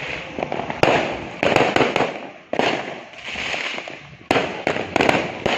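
New Year fireworks going off: sharp bangs come in quick clusters about a second in and again near the end, each followed by a crackling tail.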